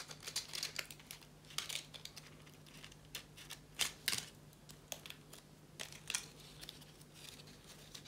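Coffee-filter paper petals rustling and crinkling in the hands as they are bound onto a wire stem with floral stem tape, in short irregular bursts. A couple of sharper clicks come about halfway.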